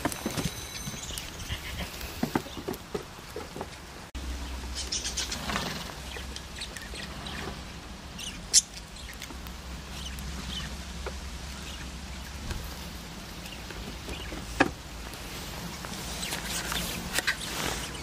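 Goats moving about right beside the camera: scattered hoof taps on wooden boards and rustling, with two sharper knocks, one near the middle and one later on.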